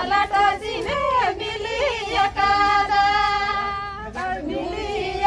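Women singing a Santali wedding folk song in high voices, the melody gliding between notes and holding one long note about halfway through.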